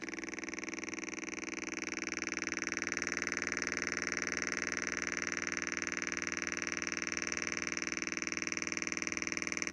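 Homemade transistor oscillator circuit sounding through a loudspeaker as a steady, harsh electronic buzz with many overtones. It grows a little louder about two seconds in.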